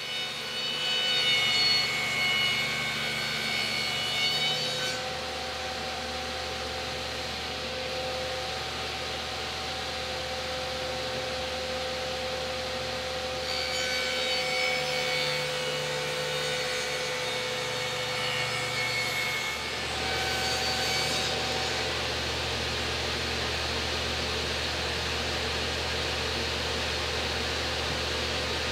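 Table saw running steadily while wooden door panels, stood on edge against the fence, are fed through to cut the first side of a rabbet around each panel. The blade's cutting whine rises over the motor hum during the passes: one at the start, a longer one about halfway, and a short one just after it.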